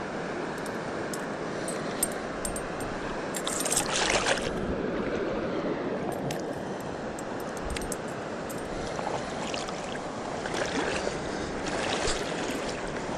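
Shallow river water running and rippling, with a short splash about four seconds in from the hooked fish thrashing at the surface, and a few small clicks from handling the tackle.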